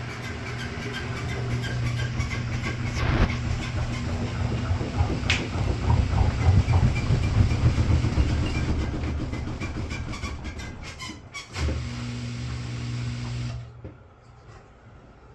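Washing machine running with a steady motor hum and loud, irregular rattling and knocking, the very weird sounds that are the reason it is being checked. The rattling is loudest in the middle, there is a single thump near the end, and then the machine stops abruptly.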